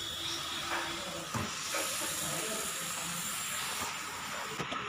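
Masala-coated chicken frying in a non-stick pan, a steady sizzling hiss, with a wooden spatula stirring and now and then knocking against the pan.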